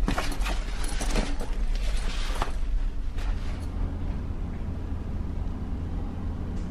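Steady low hum of a ferry's engines and machinery, heard inside the passenger deck. A backpack rustles and clicks in the first couple of seconds.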